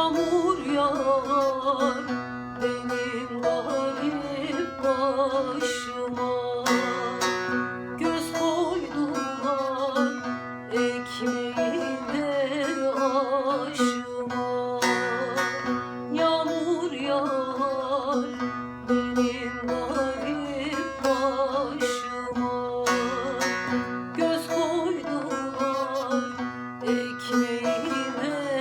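Turkish folk music: a plucked string instrument playing an ornamented melody over a steady drone, with regular sharp strokes.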